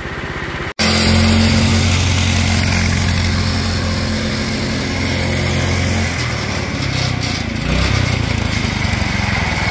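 A Duromax 208cc single-cylinder go-kart engine runs hard against its rev-limiting ignition coil, which caps it at about 5,250 rpm. The engine's steady drone comes in abruptly about a second in and turns unsteady and wavering from about six seconds on. Held on the limiter, the engine washes gas into the cylinder and begins to flood out.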